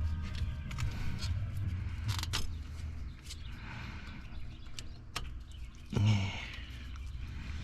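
Scattered clicks and light knocks of hand work on a diesel engine as fuel injector return line fittings are pulled off, with one louder thump about six seconds in, over a low steady hum.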